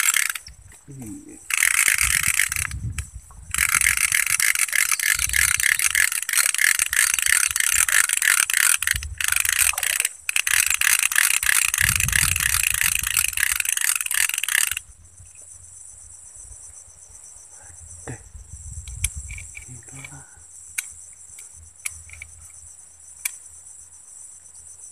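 Fishing reel being cranked to bring in a hooked fish: a fast rattling whir with two short pauses that stops abruptly about 15 seconds in. A steady high insect chorus runs underneath.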